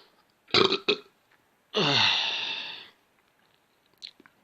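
A person forcing out burps without a drink: a short burp about half a second in, then a longer one that drops in pitch about two seconds in.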